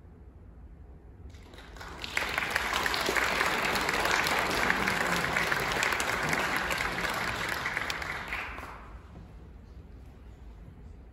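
Concert-hall audience applauding: the clapping builds up about a second and a half in, holds for some six seconds and dies away near the end.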